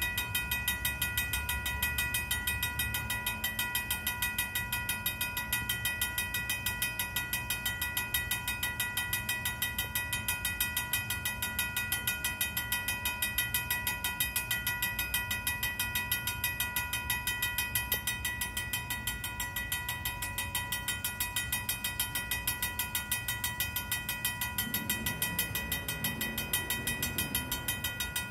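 Vintage mechanical railroad crossing bell ringing fast and steadily, a rapid even run of metallic strokes that never slows. It is warning that a train occupies the crossing.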